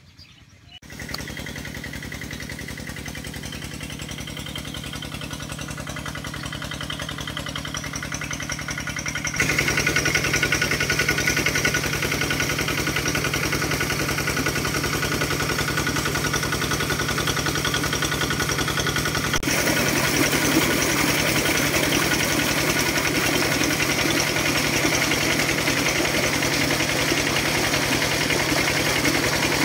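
Engine-driven irrigation water pump running steadily, with water gushing from its outlet pipe. The sound grows louder about a second in and again after about nine seconds.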